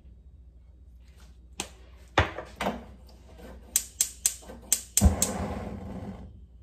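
A few knocks, then a gas hob's igniter clicking six times in quick succession as a burner is lit under a frying pan, followed by a brief soft rush as the gas catches.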